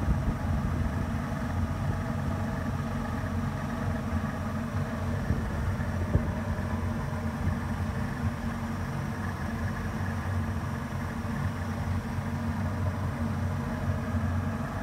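Twin Yamaha HPDI two-stroke direct-injection outboards running steadily at about 1300 rpm, with the noise that the owner calls a "salt shaker". A brief click about six seconds in.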